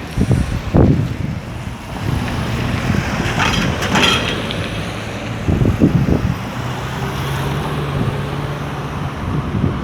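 Street traffic with vehicle engines running: a steady low engine hum, with louder rumbling surges about a second in and again around six seconds.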